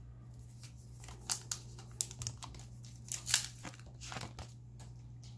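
A hockey card pack's plastic wrapper being torn open and crinkled by hand, a string of short, irregular crackles.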